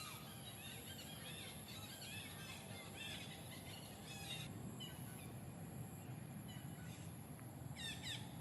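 Birds chirping in short, quick falling calls, repeated in clusters, over a steady low background hiss.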